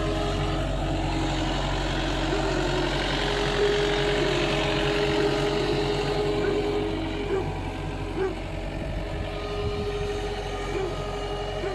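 Yanmar diesel engine of a 2013 Gehl V270 skid steer running steadily, a little louder for the first several seconds and settling lower about seven seconds in.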